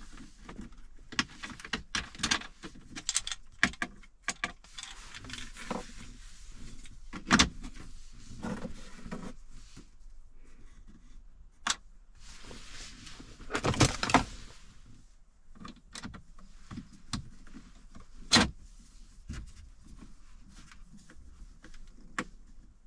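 Hard plastic clicking, knocking and scraping as a 3D-printed phone mount is fitted and adjusted on a truck dashboard. There are two stretches of rubbing, about five and thirteen seconds in, and a few louder snaps, the loudest about seven, fourteen and eighteen seconds in.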